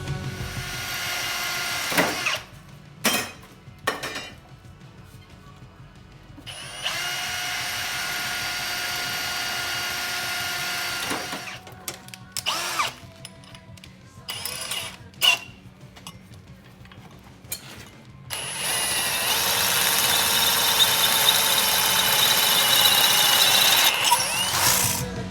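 Power drill running in three long spells of about two, four and seven seconds, with short trigger blips between them; the last spell is the loudest.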